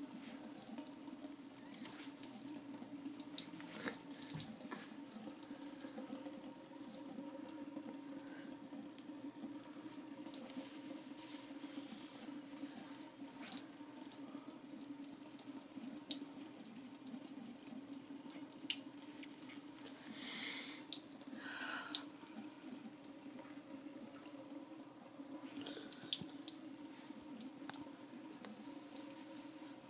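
Water running steadily from a bathroom tap into a sink, with faint small clicks over it.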